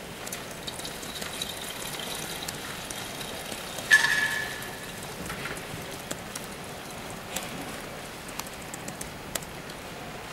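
Tea being poured and strained, a steady trickle and splash of liquid, with one short ringing clink about four seconds in.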